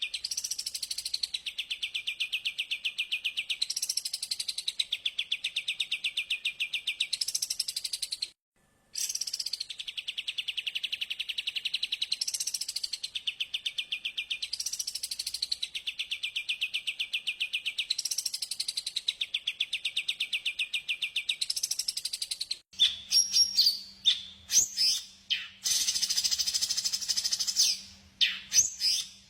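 Recorded songbird song: a fast, buzzy trill whose phrase swells and falls about every second and a half to two seconds, cut off briefly once. Near the end it changes to a different bird's sharp, varied chirps and whistles.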